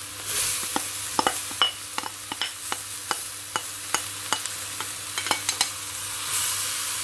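Marinated soya chunks sizzling as they are tipped into hot oil and softened onions in a stainless steel pan, with a run of quick light clicks and taps of a spoon and the chunks against the pan over the first five or six seconds.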